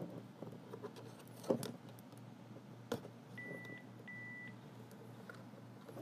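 Two sharp plastic clicks as the power supply plug is worked out of the back of a cordless phone base, then two short high-pitched beeps from the phone about half a second apart.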